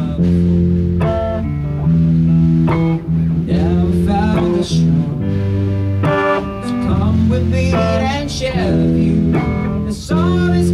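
Electric guitar and electric bass playing together in a band rehearsal, held notes and chords over a bass line that changes every second or so.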